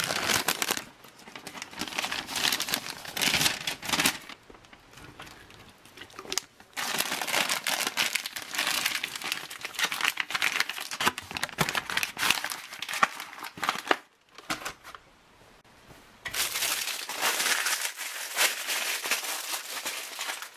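Crinkling and rustling of an MRE's plastic flameless ration heater bag being handled as the beef ravioli pouch is worked into it. The handling comes in three stretches, with quieter pauses about four seconds in and again around fourteen seconds.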